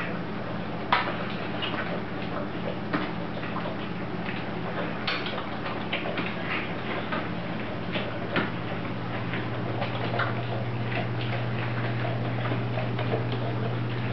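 Doberman puppies suckling at their mother: a run of irregular small smacking clicks over a steady low hum.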